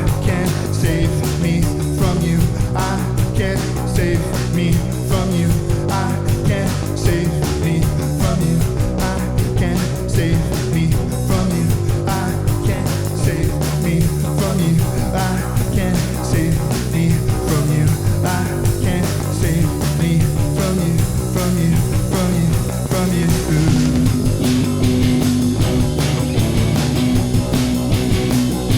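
Loud rock music with guitar and a steady beat, with what may be singing in it.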